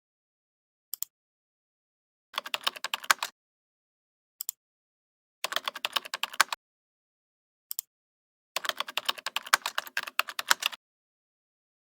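Computer keyboard typing in three quick bursts of rapid key clicks, each about one to two seconds long, with a single click about a second before each burst.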